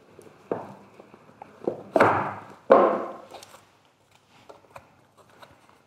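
A small cardboard product box being opened by hand: its outer part slid off with a few short scraping, rustling sounds, the two loudest about two and three seconds in, followed by faint light taps and clicks of packaging being handled.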